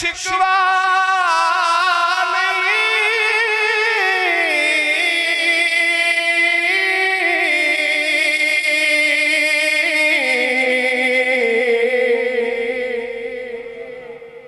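A man singing one long, drawn-out note of a Punjabi devotional kalam, with a wavering, ornamented line. The note steps down in pitch twice and fades out near the end.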